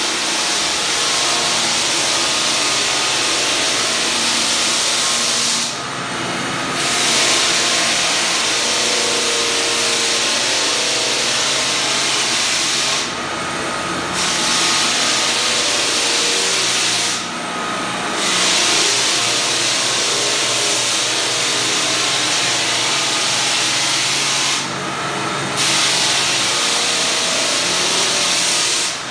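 Walk-behind drum floor sander running and sanding a bare hardwood floor ahead of the finishing coat: a steady motor drone under a loud grinding hiss. The hiss drops out briefly four times.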